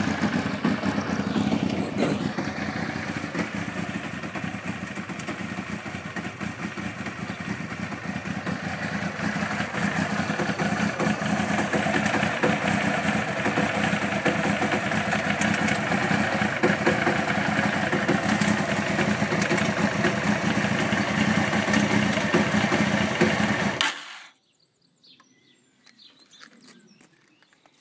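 1992 Honda CBR900RR's inline-four engine running steadily with a suspect mechanical noise, which the owner suspects may come from the cam chain or its tensioner. The engine sound stops abruptly about 24 seconds in.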